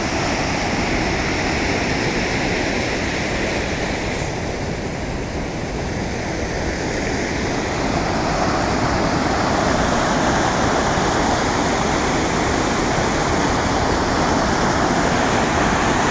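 Muddy floodwater after heavy rain rushing and cascading over a drop, a steady loud roar of churning water that grows a little louder about halfway through.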